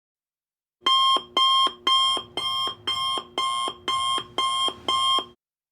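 Electronic alarm beeping: nine short, evenly spaced beeps at about two a second, then it cuts off.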